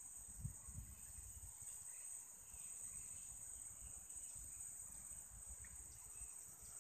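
Steady, high-pitched insect chorus from the riverside vegetation, over a faint low rumble.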